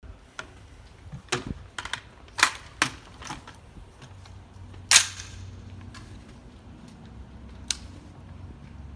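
Smith & Wesson M&P15 Sport II AR-15 rifle being handled: a series of sharp metallic clicks and snaps, several close together in the first few seconds, the loudest about five seconds in, and a last one near the end.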